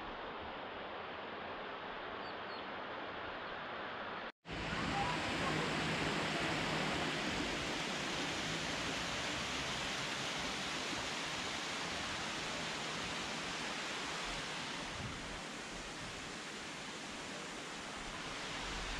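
Steady rushing water of a waterfall or stream, an even hiss. It breaks off for an instant about four seconds in and comes back louder.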